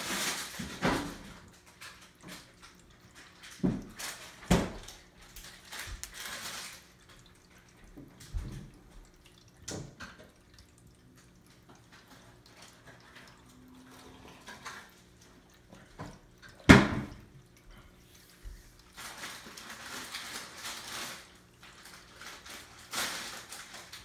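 Electric pet water fountain running: a steady trickle of water over a low pump hum. Occasional knocks and rustles break in, the sharpest knock about two-thirds of the way through.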